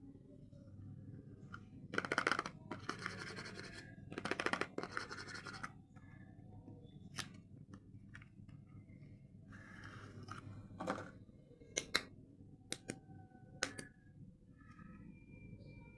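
Soap packaging being handled and opened: two stretches of scratchy rustling, then a handful of sharp clicks and taps.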